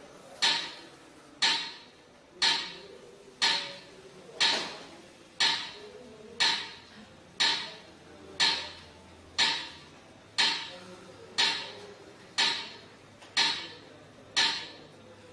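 Metronome clicking steadily at about one beat per second, each click sharp with a short ring.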